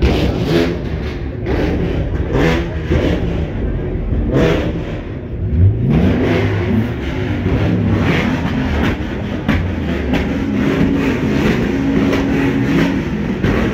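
Car engines running loudly. About six seconds in, one engine revs up sharply, and its pitch then rises and falls repeatedly as it is revved.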